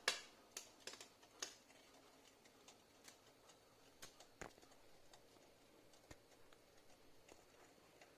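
Faint scattered clicks and taps: one sharp click at the start, a quick run of clicks in the first second and a half, then only sparse soft ticks.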